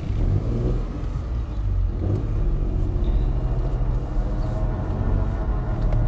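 Car moving off and driving slowly, heard from inside the cabin: a steady low engine and road rumble.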